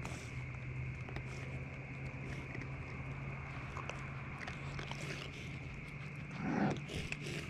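Raccoons foraging and chewing: scattered small clicks and crunches over a steady high drone and a low hum, with one louder, brief, low sound about six and a half seconds in.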